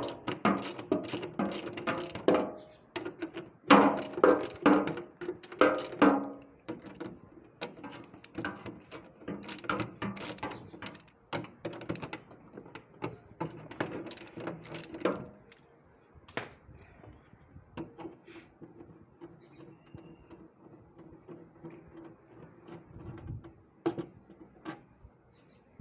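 Irregular mechanical clicking and clanking, like hand tools working on metal parts, dense and loud for the first fifteen seconds and sparser after.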